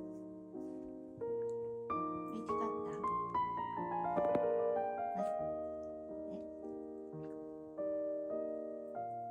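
Background piano music: slow chords, with a descending run of notes around the middle.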